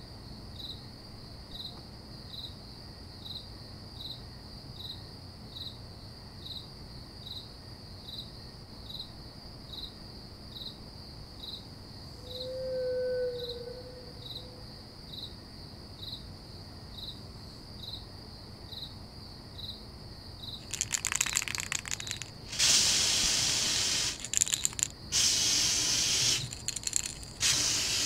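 A cricket chirping slowly and regularly, about once a second, over a faint steady high hum; a short faint tone sounds about halfway through. From about three-quarters of the way in, loud bursts of hissing noise cut in and out abruptly.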